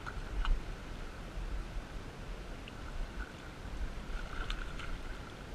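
Shallow river running over a stony bed, with low wind rumble on the microphone and a couple of faint knocks.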